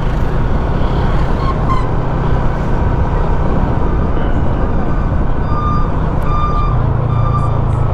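Steady road and wind noise from a vehicle on the move, with a few short, repeated beeps about two thirds of the way in.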